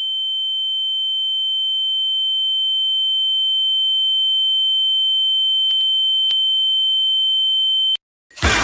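A steady, high-pitched electronic beep tone held for about eight seconds, slowly getting louder, then cutting off suddenly; after a moment of silence, music starts at the very end.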